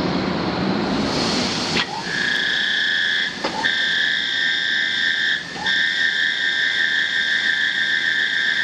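Alfa Laval BRPX309 disc-stack centrifuge on test run: a broad rushing noise, then after a click about two seconds in, a steady high-pitched whine of two pitches. The whine drops out briefly twice, each time with a click.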